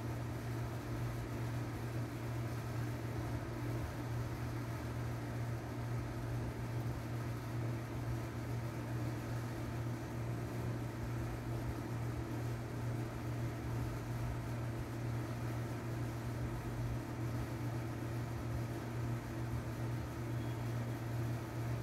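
A steady low machine hum that runs unchanged, with no knocks or tool strikes.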